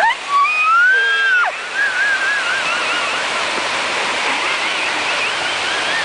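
Man-made waterfall rushing steadily, with a long high-pitched yell over it in the first second or so, then wavering high calls.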